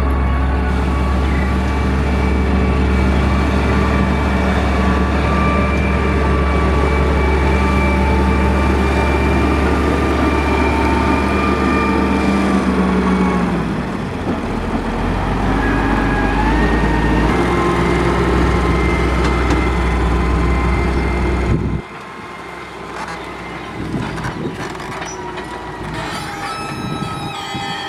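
Caterpillar 140H motor grader's diesel engine running under load, a heavy steady rumble with a whine on top. Its pitch shifts about halfway through, and the sound drops off suddenly near the end, leaving quieter running.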